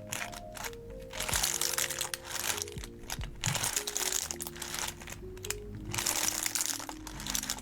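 Slime being pressed and squished, giving crinkly, crackling bursts about once a second, over background music with a simple melody.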